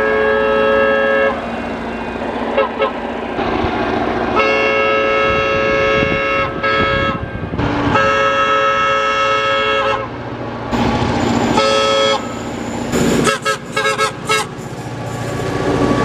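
Diesel freight locomotive's multi-note air horn sounding three long blasts, then a short blast and a quick run of short toots, over the rumble of the approaching train.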